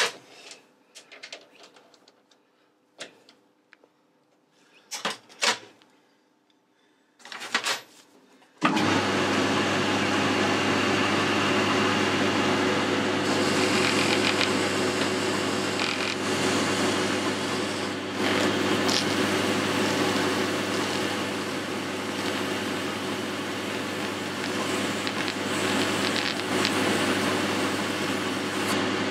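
A few sharp clicks and knocks as a chuck key tightens a caliper guide pin in the lathe chuck, then about nine seconds in the Boxford lathe starts and runs steadily with a constant hum. Emery cloth rubs on the spinning pin, polishing off hardened grease.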